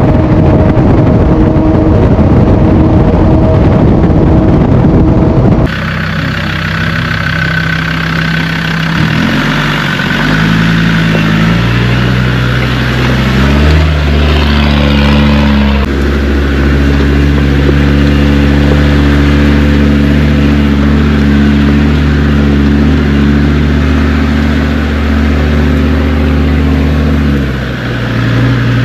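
Land Rover Discovery 2 Td5 five-cylinder turbodiesel on the move. For the first few seconds it is loud, with road and wind noise at road speed; it then changes abruptly to the engine running at low, fairly steady revs, its pitch shifting a few times as the throttle changes.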